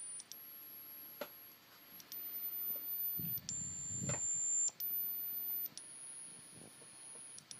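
Piezo buzzer driven by a Particle Photon's PWM output, sounding a run of about six steady, very high-pitched beeps. Each beep is held for a second or so before jumping to a new random pitch. A soft low thump and a couple of faint clicks come near the middle.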